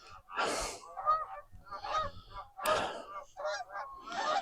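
Birds calling over the water: many short, repeated calls that overlap throughout, with three short bursts of rushing noise.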